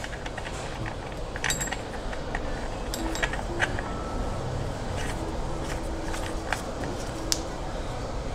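Scattered light metallic clicks and ticks as the Bafang BBSHD mid-drive's mounting nut is turned finger-tight onto the bottom bracket, over steady background noise.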